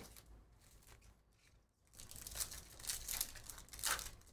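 A foil trading-card pack being torn open and its wrapper crinkled in the hands, starting about two seconds in with several louder crackles.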